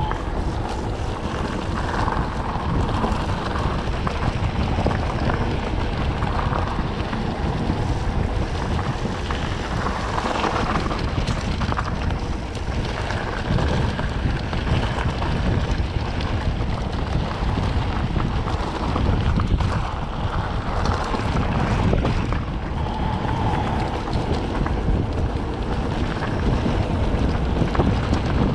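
Steady, loud wind buffeting on the microphone over a continuous low rumble of movement along a trail.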